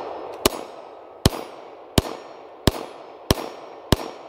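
Norinco 213 9mm Tokarev-pattern pistol firing six shots in a steady string, about one every two-thirds of a second, each shot followed by a short echo. The pistol is cycling through its 8-round magazine without a malfunction.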